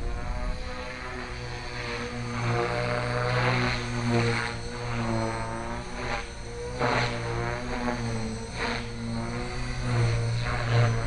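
Align T-Rex 450 Pro electric RC helicopter in flight: the pitched hum of its main rotor and motor, rising and falling in pitch as it manoeuvres, with several brief louder rushes of noise.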